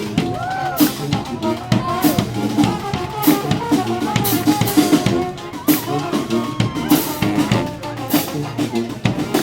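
Street band playing: bass drum and snare keep a steady beat under pitched horn-like melody lines.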